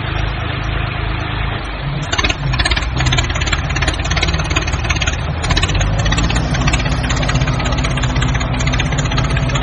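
Construction vehicle's engine running at a steady idle, with a rapid clatter that sets in about two seconds in.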